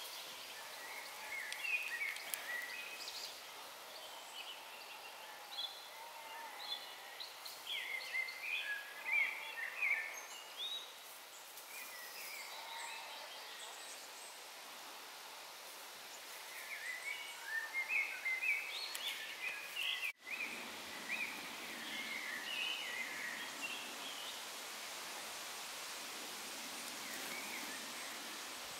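Forest ambience: a songbird repeats short, quick, high-pitched warbling phrases over a steady background hiss, with a brief dropout about two-thirds of the way through.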